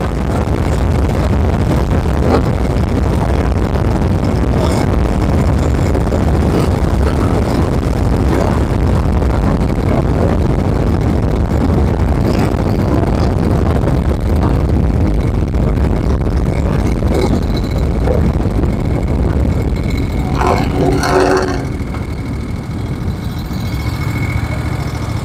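Moto Guzzi Eldorado's transverse V-twin, bored out to nearly 1000cc, running under way with heavy rushing wind noise. A brief higher-pitched tone sounds about twenty seconds in, and the sound eases off a little near the end.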